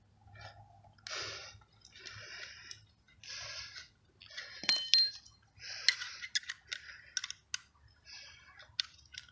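Hand tap cutting M8 threads into a motorized-bike engine's mount-bolt hole. A short scraping rasp comes with each turn of the tap wrench, about one a second, mixed with clicks and a brief metallic ring about halfway through.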